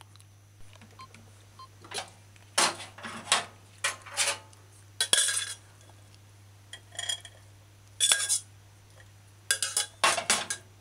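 A metal spoon clinking and scraping against a stainless steel saucepan as mixed vegetables are spooned out into a bowl. There is a string of irregular sharp clinks and short scrapes, starting about two seconds in, over a steady low hum.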